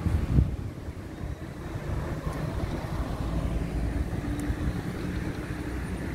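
Low rumble of city street traffic, with a vehicle engine humming steadily through the middle and a brief knock about half a second in.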